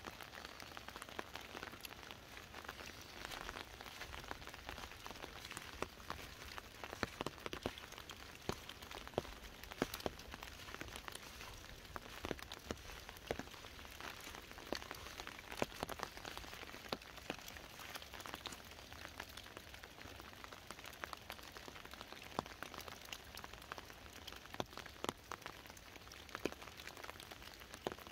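Rain falling on an umbrella: a steady patter with many sharp ticks of single drops striking the canopy.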